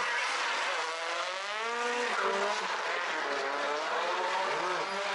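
Drift cars sliding through a corner: engines revving up and falling back as the throttle is worked, rising sharply about a second in and again near the end, over a steady hiss of tyre noise.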